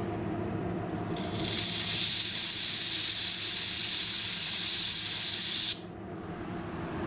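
A loud hiss of compressed air being let out, starting about a second in and cutting off sharply after about five seconds, over the steady hum of running piston air compressors.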